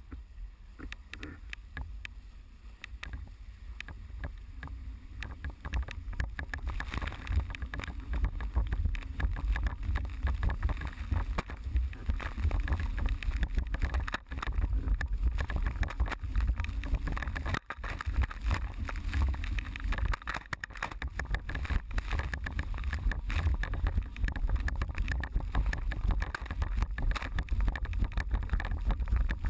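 Wind buffeting the microphone with water rushing and splashing against a board sailing at speed, growing louder after about six seconds.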